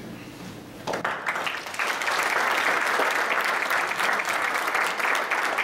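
Congregation applauding: the clapping starts about a second in and grows fuller about two seconds in, then holds steady.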